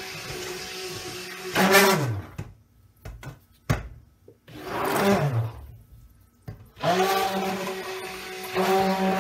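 Stick blender mixing cold process soap batter in a stainless steel pot, run in pulses. It runs for about two seconds and winds down, then there are a few clicks and knocks. It runs briefly and winds down again, then starts up about seven seconds in and runs steadily.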